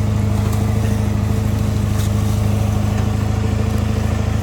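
Ford F350 pickup's engine running steadily under load at an even pitch while it tows a dead truck up a hill.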